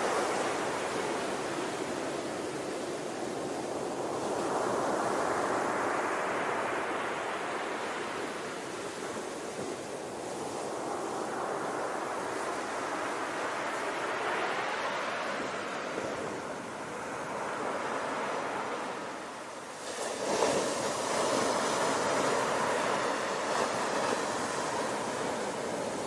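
Sea waves breaking on a beach: surf that swells and eases in slow surges, with one sudden heavier crash about three-quarters of the way through.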